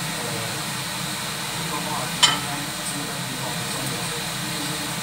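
A wok of chicken feet and pork braising in soy sauce, giving a steady cooking hiss, with one sharp clack about two seconds in.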